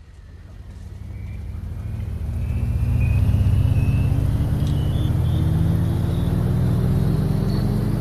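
A motor vehicle's engine drawing closer and getting louder over the first few seconds, its pitch slowly rising as it speeds up, with a faint rising whine above it.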